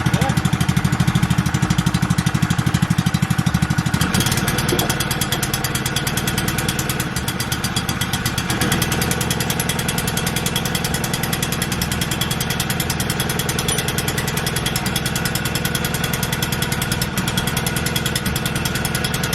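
Small single-cylinder four-stroke petrol engine of the GX120/140 class running steadily with a fast, even pulse while it drives a newly fitted Hypro roller pump on its first test run. It eases slightly in level about four seconds in.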